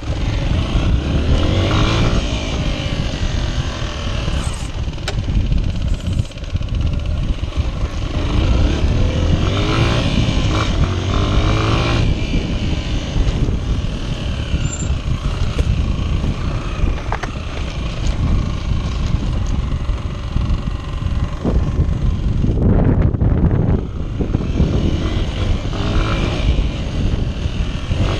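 Honda XR125's single-cylinder four-stroke engine being ridden off-road, its note repeatedly climbing and dropping back as the throttle opens and closes, over a steady low rumble.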